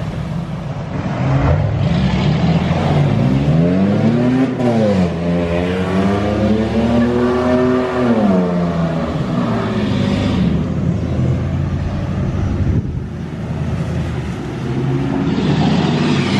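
Vehicle engines revving as they are driven through floodwater; one engine climbs in pitch and drops off about four seconds in, then climbs again and falls away near eight seconds.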